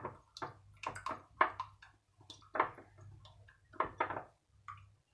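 Fingers working an oil-and-spice marinade in a small bowl: irregular short wet squishes and scrapes against the bowl, about one every half second to a second, over a faint steady low hum.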